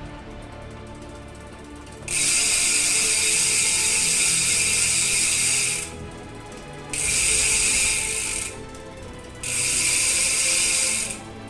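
ARC MT009 rear hub's freehub ratcheting as the wheel coasts: a very loud, fast buzz in three long runs of a few seconds each, with quieter gaps between.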